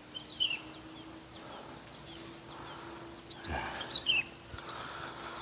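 Birds chirping: many short, quick sliding calls, over a faint steady hum, with a couple of sharp clicks a little past the middle.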